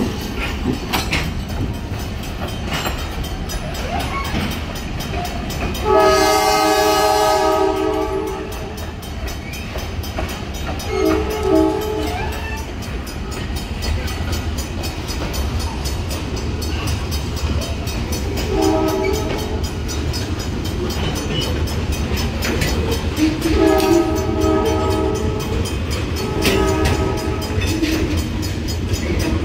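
Freight train of covered hopper cars rolling past with a steady rumble and wheel clatter. The diesel locomotive's multi-note horn sounds one long, loud blast about six seconds in, then several shorter blasts later on.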